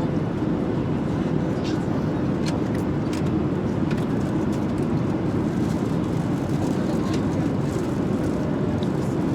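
Steady low cabin drone of an airliner in flight, with a few faint clicks.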